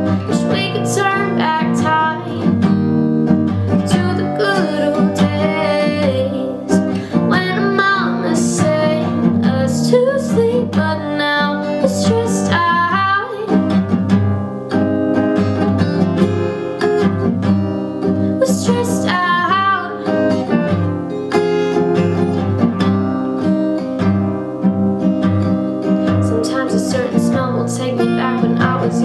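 Background music: a strummed acoustic guitar with a woman singing.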